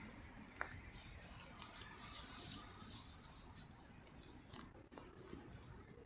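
Tall dry grass rustling and crackling as a cat pushes through it, a high hiss full of small snaps and ticks that is busiest about two to three seconds in and dies down near the end.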